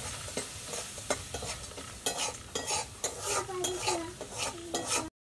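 A cooking utensil stirring and scraping against a metal pan of curry, making a quick irregular run of clicks and scrapes over a light sizzle. The sound stops abruptly just before the end.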